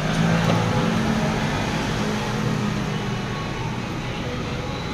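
Claw crane machine running as its claw lowers onto a prize box: a steady low motor hum, strongest in the first couple of seconds, over a constant noisy background.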